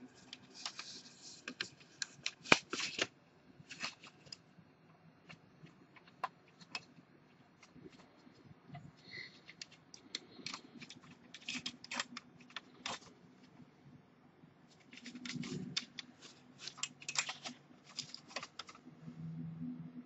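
Faint, irregular clicks and taps in scattered clusters, with quiet gaps between.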